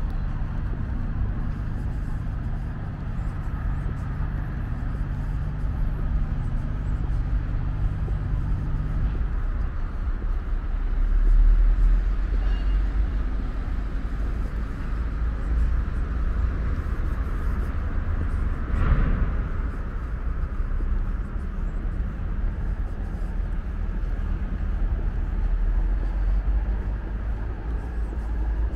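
Road traffic running steadily past, a low rumble of engines and tyres, with a louder swell about two-fifths of the way in and a brief sharp rush of a vehicle passing close about two-thirds through.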